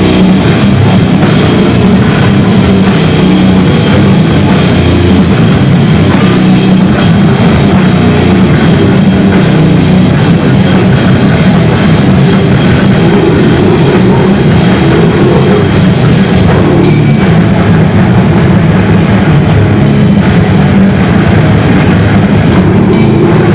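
A death-doom metal band playing live and loud: heavily distorted electric guitars and bass over a full drum kit, with no break.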